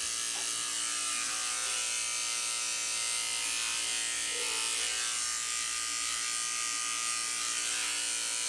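Corded electric dog-grooming clipper with a #30 blade running steadily as it shaves the hair off a dog's paw pads.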